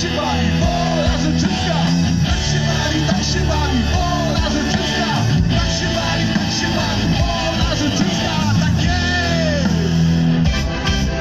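Live band playing a loud rock song over an outdoor stage's speakers, with electric guitar and a singing voice.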